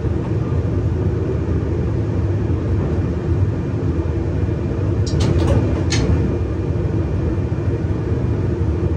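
Steady rumble of an electric regional train running along the line, heard inside the driver's cab, with a few sharp clicks about five to six seconds in.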